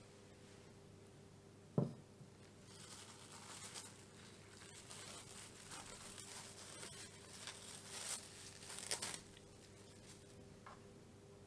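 A single sharp knock about two seconds in, then plastic cling film crinkling and tearing as it is peeled off a bowl and crumpled, for about six seconds.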